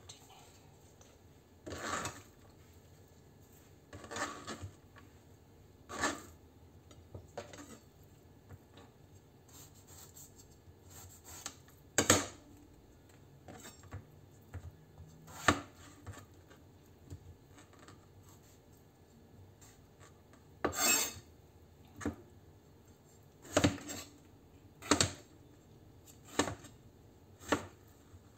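All-steel Global chef's knife cutting tomatoes and knocking on a plastic cutting board: single sharp knocks, irregular and a second or two apart, coming closer together in the second half.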